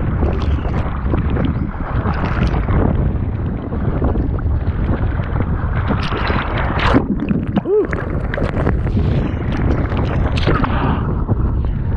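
Heavy wind buffeting the microphone over the rush and slap of water under a kiteboard riding at speed, gusting up and down without a break.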